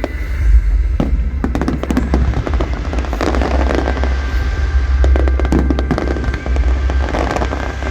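Fireworks display: shells bursting in a dense run of bangs and crackles over a continuous low rumble.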